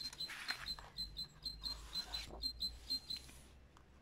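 Paper pages of a picture book being turned, a soft rustle, over a rapid run of short, high-pitched chirps, about five a second, that stop near the end.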